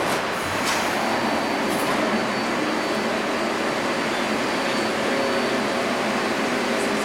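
A CNC steel sheet cut-to-length line running, its leveling rolls and drives making a steady mechanical noise, with a brief sharp knock under a second in.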